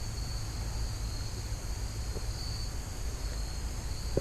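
Steady insect chorus, a high buzzing drone, over a low, steady rumble.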